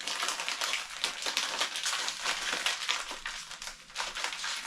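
Packaging being handled and rummaged through: a dense, continuous crinkling and crackling rustle.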